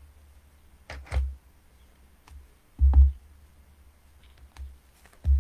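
A few dull thumps on a tabletop, about a second in, around three seconds in and near the end: a rubber stamp being tapped onto an ink pad and pressed onto paper.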